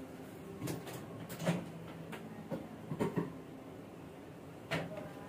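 About half a dozen faint knocks and clunks, spaced out irregularly, as a lidded plastic bowl is set inside a microwave oven and handled into place.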